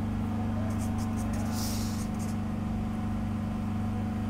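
Steady low hum with a few faint scratchy strokes of a marker writing on a whiteboard, mostly around the middle.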